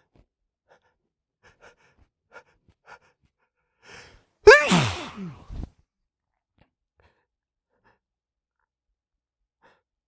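A man's hitchy sneeze build-up: a few short catching breaths and a quick inhale, then one loud, powerful sneeze into tissues about four and a half seconds in. Its voiced part falls in pitch as it trails off.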